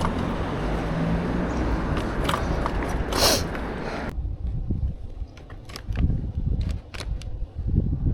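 Wind rushing over the microphone while riding, cutting off suddenly about four seconds in. It is followed by a few sharp clicks and low knocks.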